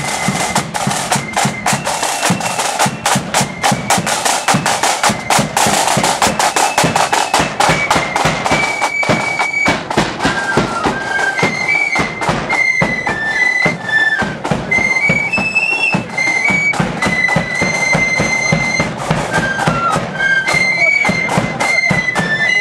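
Marching flute band playing a march: side drums beating a rapid, steady rhythm under a high flute melody. The drums are heaviest for the first several seconds, and the flute tune comes through more clearly after that.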